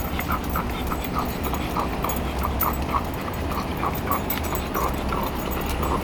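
French bulldog panting in quick, even breaths, about three a second, while walking uphill on a leash.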